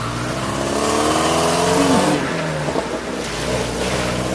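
City road traffic: car engines accelerating past over a steady rush of tyre and traffic noise, one engine's pitch rising over the first two seconds and another coming up a little after the three-second mark.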